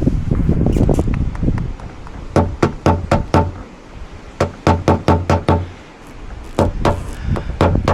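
Runs of quick, light metal taps, about five or six a second with pauses between runs, each tap ringing briefly: a PDR hammer and knockdown tool tapping down high spots on a car body panel during paintless dent repair.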